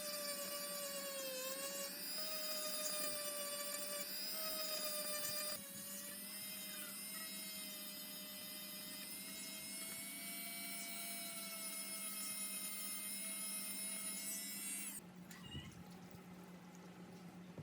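Small high-speed electric power tool running with a steady whine, its pitch dipping briefly now and then as it takes load, then switched off about fifteen seconds in. A low steady hum carries on after it stops.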